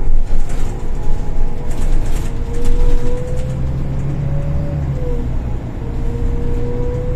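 Golden Dragon XML6125CC city bus running, heard from inside the cabin: a low drone with a steady whine that rises slightly and then drops about five seconds in. There is scattered rattling in the first three seconds.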